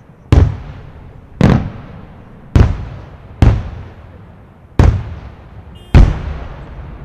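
Aerial firework shells bursting overhead: six loud bangs about a second apart, each followed by a rumbling echo that fades before the next.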